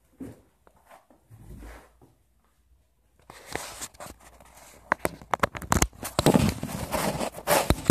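Plastic bags rustling and crinkling, with many sharp clicks and knocks, as hoop-building parts are handled. It begins faintly and becomes loud and continuous from about three seconds in.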